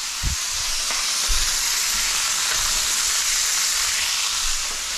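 Chicken legs sizzling in oil in a stainless steel skillet, a steady frying hiss as the second side browns in the pan's residual heat with the gas burner just switched off. A soft knock or two in the first second or so.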